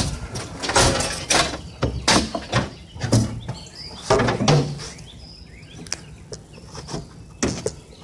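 A series of irregular knocks and clatters, dying down after about five seconds, with faint bird chirps in the quieter part.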